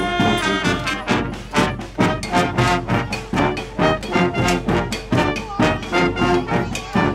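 Marching brass band playing a tune: horns over a steady drum beat of about two strong hits a second.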